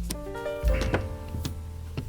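Background music: sustained notes changing over a deep bass line, with a few sharp hits.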